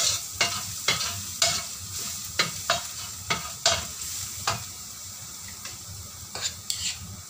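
Minced garlic sizzling in hot oil in a stainless steel wok while it is sautéed until fragrant. A metal spoon scrapes and taps against the wok about twice a second, pauses after about four and a half seconds, then strikes twice more near the end.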